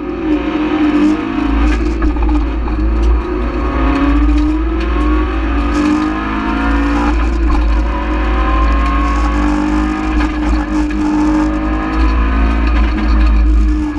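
Rally car engine heard from inside the cabin, revving hard under acceleration. Its pitch climbs and drops again and again as it works through the gears, over a heavy low rumble from the road and drivetrain.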